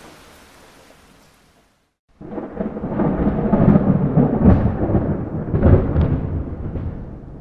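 Steady rain fades out to a moment of silence, then a loud thunder rumble starts suddenly about two seconds in, rolling with several louder cracks before slowly dying down.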